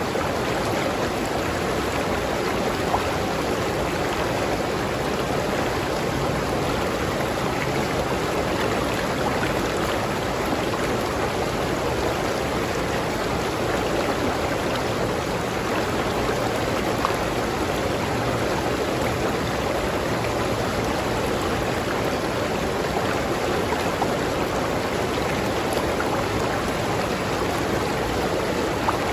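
River water flowing steadily over rocks: a continuous rushing and babbling with small splashes.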